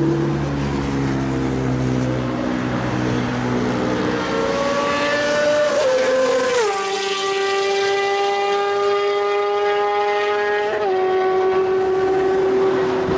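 Sport bike, likely a Honda CBR600RR, running its inline-four engine at high revs in a fast pass along a highway. The high, steady note climbs in pitch as the bike closes in, drops sharply a little past halfway as it goes by, then holds with a slight dip near the end.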